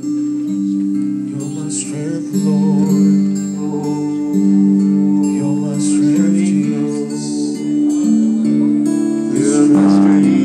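Acoustic guitar strumming held chords while a man sings along, amplified through a PA speaker.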